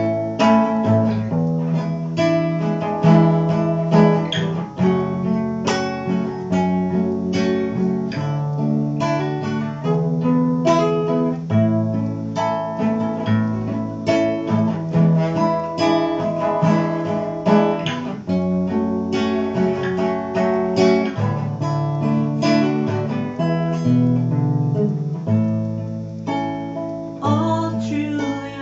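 Nylon-string classical guitar strumming chords in a steady rhythm, mixed with single plucked notes.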